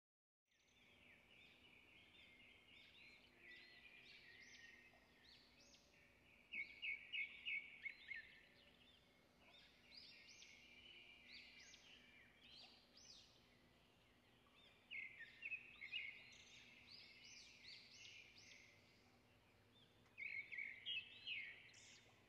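Faint birdsong: several birds chirping, with bursts of quick repeated notes about seven, fifteen and twenty-one seconds in, over a faint steady hum.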